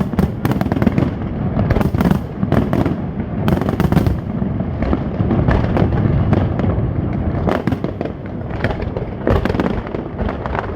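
Fireworks display: a dense, unbroken run of booms and sharp crackling reports overlapping one another.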